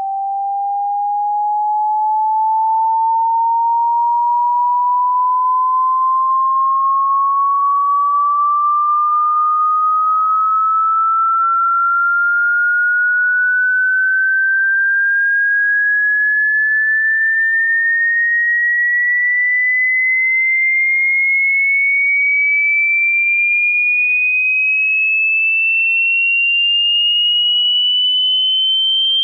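A single pure electronic sine tone sweeping slowly and steadily upward in pitch at a constant level, a synthesized dog-whistle sound effect meant to stop dogs barking.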